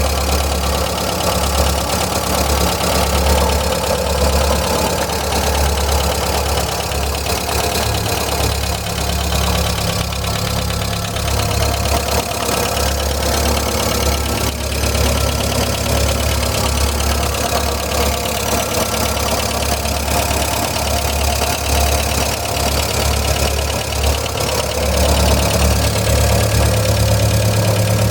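VW Gol 1.0 AT four-cylinder engine idling with a strange knocking noise, which the owner suspects may be a hydraulic lifter (tappet) knocking. It gets a little louder in the last few seconds.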